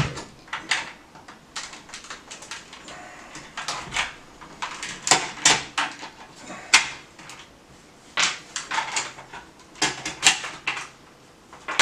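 Irregular clicks and knocks of hard plastic as a Nerf Alphahawk blaster and its small parts are handled and worked by hand, with clusters of quick clicks in the second half.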